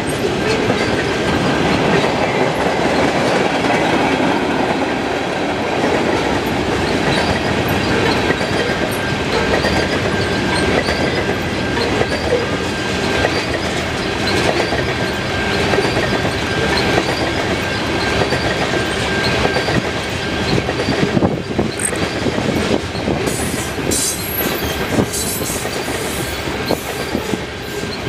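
Freight train of tank cars rolling past at speed: a steady, loud rumble and clickety-clack of steel wheels over the rail joints. A thin, steady high squeal from the wheels runs through it, and sharper metallic clicks and rattles come in near the end.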